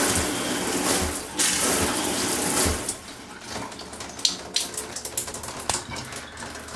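Water rushes from a Delta single-handle shower valve as the newly replaced cartridge is flushed, then stops about three seconds in as the valve is shut. After that, water left in the line dribbles from the showerhead, and irregular drips tick onto the tub.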